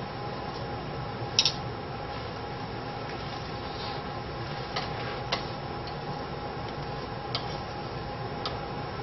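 A few sharp light clicks and taps from painting tools working at the canvas, the loudest a double click about one and a half seconds in, over a steady hum and hiss.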